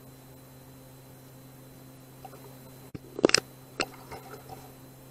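A short cluster of sharp clicks and knocks about three seconds in, then a single sharp click and a few faint ticks, over a steady electrical hum.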